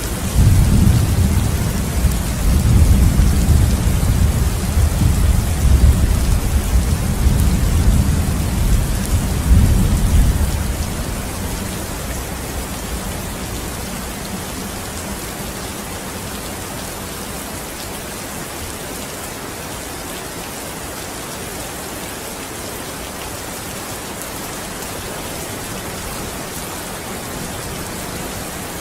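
Steady rain with a long, low rumble of thunder that dies away about eleven seconds in, leaving the rain alone.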